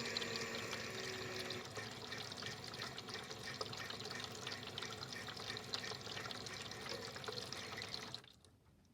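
Water running and splashing through a toy washing machine, its small pump motor whining with a slightly falling pitch for the first second or so. The water sound stops abruptly about eight seconds in.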